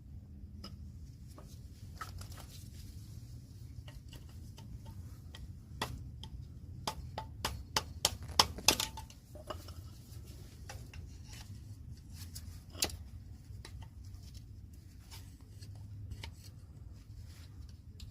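Sharp metallic clicks and taps from hand tools working the C-clip that holds the parking-brake lever arm on a drum brake shoe. There is a quick run of clicks midway, the loudest near the middle, then one more a few seconds later.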